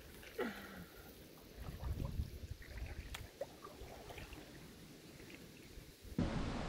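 Kayak drifting quietly: faint water and hull sounds with a few faint high chirps. A louder rushing noise starts suddenly near the end.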